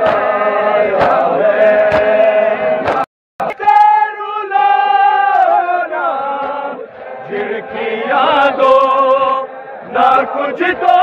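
Male voices chanting a noha (Shia lament) in unison, led by a reciter, with sharp chest-beating slaps (matam) about once a second in the first few seconds. The audio cuts out briefly about three seconds in.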